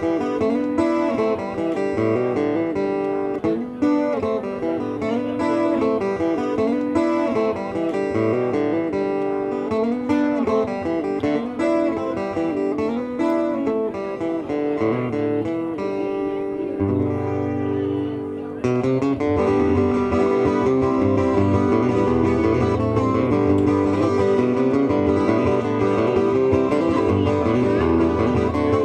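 Guitar music playing steadily, picked and strummed, growing fuller and a little louder with a deeper bass part about two-thirds of the way through.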